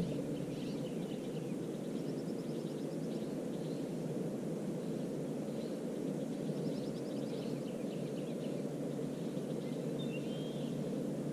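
Small birds chirping and giving short rapid trills now and then over a steady low background rumble.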